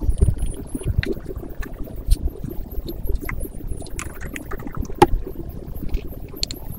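Pot of water boiling for instant noodles: a steady low bubbling rumble with scattered light clicks and ticks.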